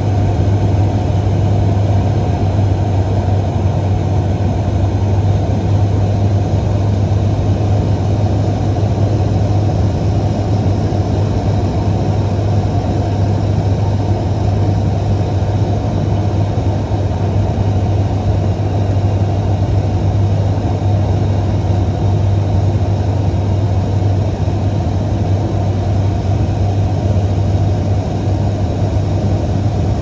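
Single-engine ski plane's engine and propeller running steadily and loudly, heard from inside the cabin, as the plane slides across glacier snow on its skis.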